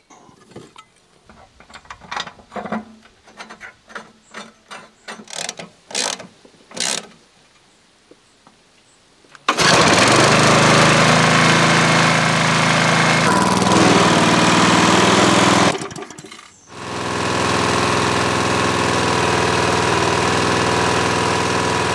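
Scattered light clicks and knocks from hand work on a lawnmower, then about ten seconds in a Briggs & Stratton mower engine starts suddenly and runs loud and steady, its pitch shifting slightly a few seconds later. Near the end it briefly drops away and comes back running steadily.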